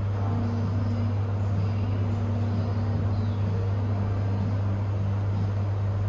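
Steady low hum that stays level throughout, with no clear events over it.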